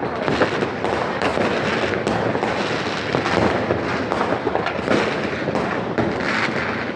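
Fireworks and firecrackers going off all around in a continuous barrage of overlapping bangs and crackles, with no pause.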